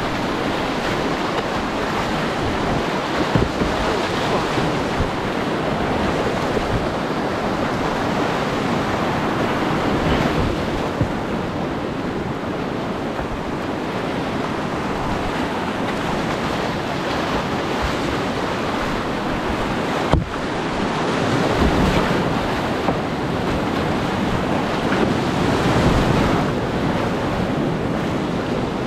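Whitewater of a steep mountain creek rushing and churning, heard from a kayak running the rapids, with paddle strokes splashing into it. A single sharp knock comes about twenty seconds in.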